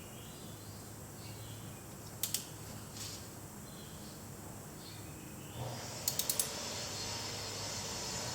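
Faint, scattered clicks of a ratchet and socket tightening an ATV's oil drain plug: a couple of clicks a few seconds in, then a quick run of four about six seconds in. A steady low hum runs underneath, and a light hiss joins partway through.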